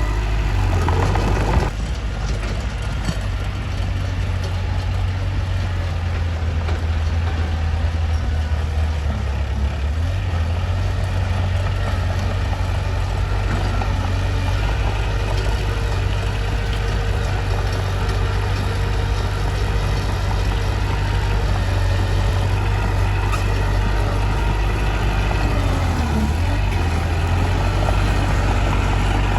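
Mitsubishi bulldozer's diesel engine running steadily with a deep low drone, its note shifting briefly a few times.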